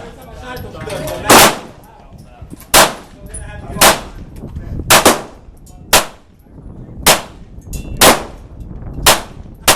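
A GSG 1911 .22 LR semi-automatic pistol fired shot after shot, about nine or ten shots spaced roughly a second apart, each crack followed by a brief ring-out.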